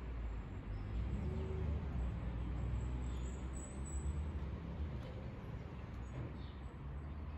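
Outdoor street ambience: a steady low rumble with a few faint bird chirps.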